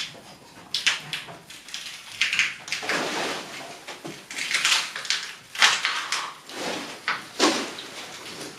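A wooden fitting being levered and wrenched off a wall: a series of creaks, scrapes and sharp knocks in irregular bursts.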